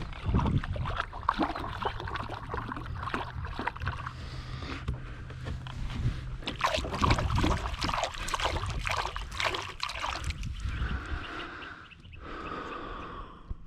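Water splashing and sloshing against a small fishing boat, with many sharp knocks and clicks.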